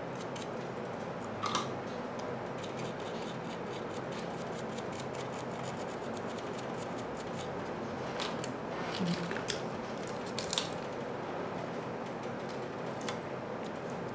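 Small hand tools ticking and scraping lightly on a tablet's circuit board, with a few sharper clicks, one about a second and a half in and a cluster about two thirds of the way through, over a steady hiss.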